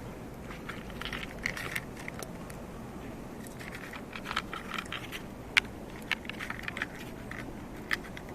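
Cats crunching dry treats: clusters of quick, crisp crackling bites about a second in and again from about four to seven seconds, with a few sharper single snaps.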